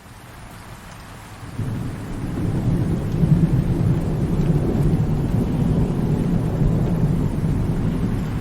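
Thunderstorm: rain with a long, low rumble of thunder that swells about one and a half seconds in and keeps rolling.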